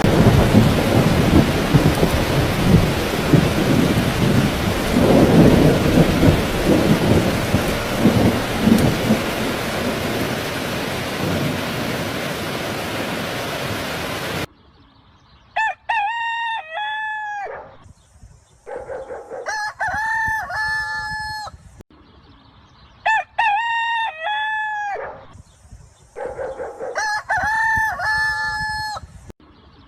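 Heavy rain with rumbling thunder, which cuts off abruptly about halfway through. A rooster then crows four times, a few seconds apart.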